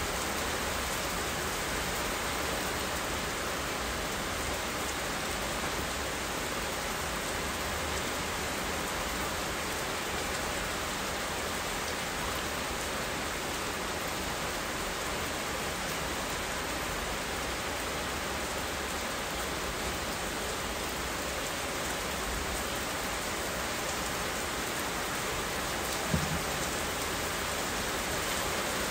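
Steady, even rain falling, with one brief low knock near the end.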